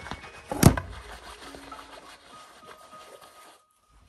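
The filming camera toppling over onto the table, heard as one sharp knock about half a second in, then faint rustling and handling; the sound drops out briefly near the end.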